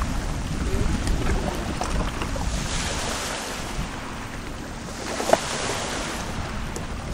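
Wind on the microphone and water washing against a stone quay, rising and falling twice. Light clicks come from a knife working at an oyster shell on the stone, with a sharper knock about five seconds in.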